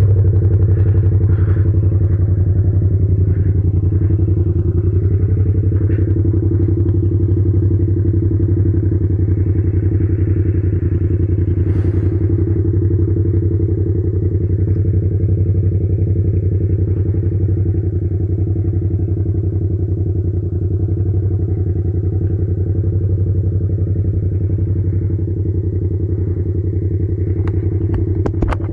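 Yamaha MT-07's parallel-twin engine idling steadily through a straight-pipe exhaust with no muffler. A few light clicks come near the end.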